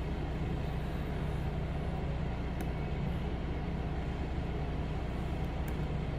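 HydraFacial machine's vacuum pump running with a steady low hum while the lymphatic handpiece is worked over the face.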